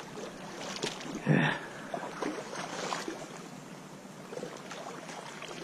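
Steady rush of a trout stream's flowing water, with a few faint small splashes or knocks.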